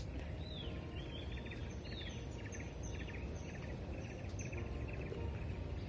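Birds calling: a couple of rising-and-falling whistled calls in the first two seconds and a rapid chattering trill repeated again and again, over a steady low background noise.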